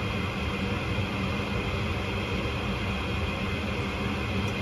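Gas furnace's newly replaced draft inducer motor running steadily: a constant rush of air over a low hum, in the start-up stage before the burners light.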